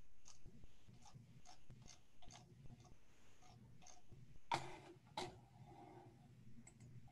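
Faint room tone with light clicks about two to three a second and a low hum, two louder clicks about four and a half and five seconds in.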